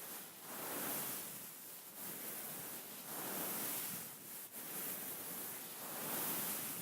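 Hands rubbing across a beaded pillow, a soft, gritty rustle of beads that swells and fades in slow strokes every two to three seconds.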